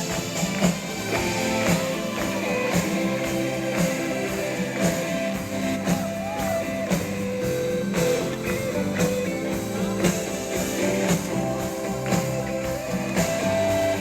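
Instrumental introduction of a Portuguese-language gospel worship song: a band with guitar and drums playing before the singing comes in.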